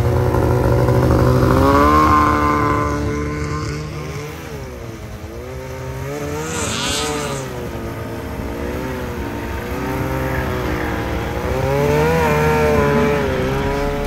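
Snowmobile engines revving as the sleds ride through deep snow, the engine pitch rising and falling again and again, loudest about two seconds in and again near the end.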